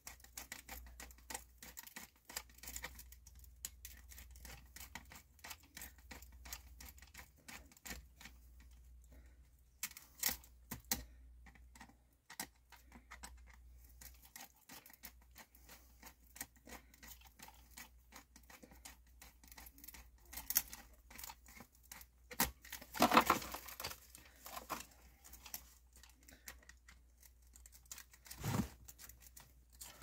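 Hands working at a sump pit's PVC discharge pipe, freeing the old float switch from its hose clamp and cord: scattered small clicks, scrapes and rustling, with a louder scraping rustle about 23 seconds in and a shorter one near the end.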